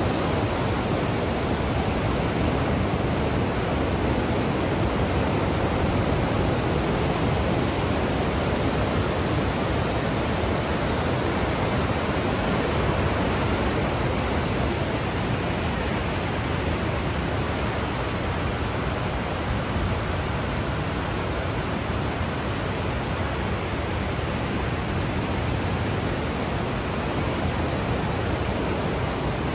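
Class 6 whitewater rapids of the Niagara River rushing, a steady, loud, unbroken wash of water noise.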